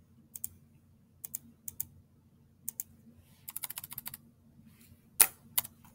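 Typing on a computer keyboard: scattered single keystrokes, a quick run of about ten keys around the middle, and a sharper click about five seconds in.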